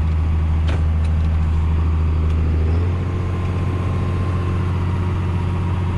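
Case IH combine running steadily with a loud low drone; about three seconds in, the drone drops in level and changes pitch as the machine's load changes. A single click just under a second in.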